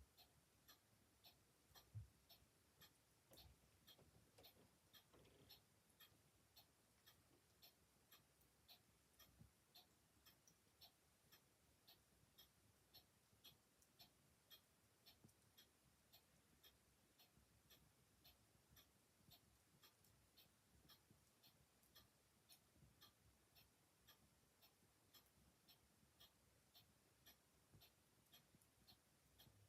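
Mechanical clock ticking steadily, about two ticks a second, very quiet, over the faint crackle of a wood fire, with one louder low knock about two seconds in.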